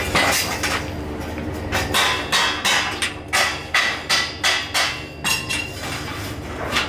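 Hammer blows on a steel-pipe chair frame: a quick run of sharp strikes, about three a second through the middle.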